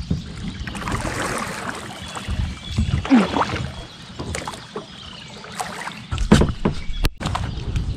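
Kayak paddle strokes in flat water: the blade dipping, splashing and dripping unevenly, with a few sharp knocks in the last couple of seconds.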